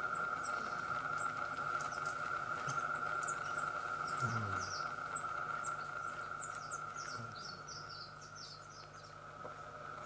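Hummingbird video soundtrack played through a hall's loudspeakers: many short, high chirps and squeaks from the hummingbirds and forest, thickest mid-way and thinning out near the end, over a steady high hum.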